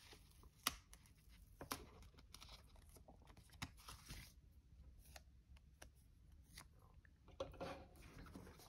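Faint paper handling: a paper sticker being peeled from its backing sheet and handled, with a few light scattered ticks.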